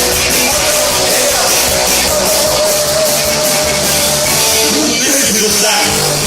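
Punk rock band playing live, loud and full, with singing over the band.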